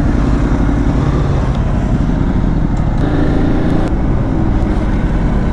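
Ducati motorcycle engine running steadily at low speed as the bike rides through town. The engine note rises about three seconds in.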